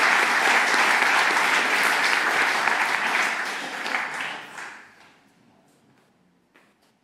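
Audience applauding, loud at first and then dying away about four to five seconds in.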